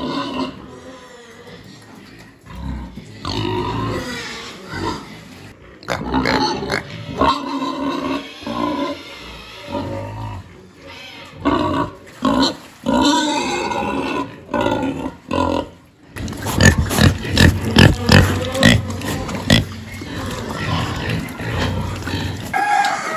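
Pigs squealing and grunting in a pen at feeding time as feed is poured in from a bucket. About two-thirds of the way through this gives way to a dense run of quick, sharp smacking clicks as the pigs eat.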